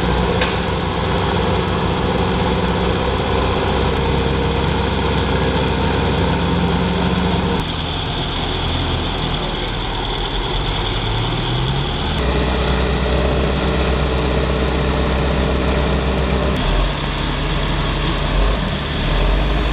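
A vehicle's engine running steadily, its note shifting several times as the load changes, with a brief rise in pitch about ten seconds in.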